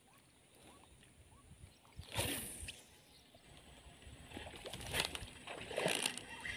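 Water splashing and sloshing as a hooked snakehead fish is brought to the surface and handled: one burst about two seconds in, then a run of irregular splashes from about four seconds on.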